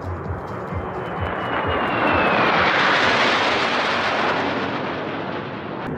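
Formation of three fighter jets passing overhead: a jet roar that swells to its loudest about three seconds in and then eases off, with a thin whine falling in pitch as they come over.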